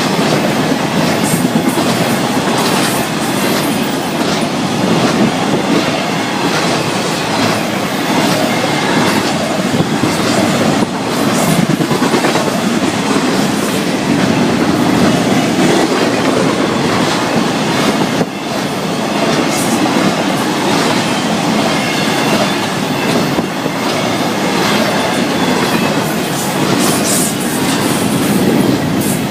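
Florida East Coast Railway freight train's cars rolling past at speed: a steady, loud rumble of wheels on rail with frequent wheel clicks over the joints.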